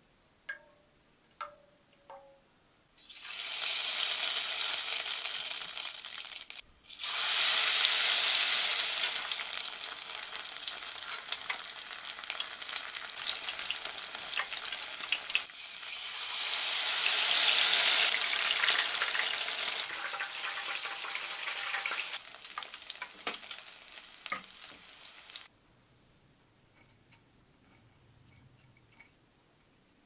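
Batter-coated shepherd's purse deep-frying in hot oil in an aluminium pot, a loud crackling sizzle. It starts about three seconds in, swells louder twice, and cuts off suddenly a few seconds before the end.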